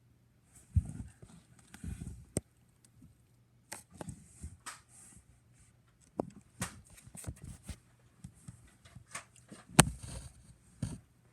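Handling noise: irregular bumps, knocks and sharp clicks as the tablet doing the recording is carried and handled, with footsteps, the loudest knock about ten seconds in.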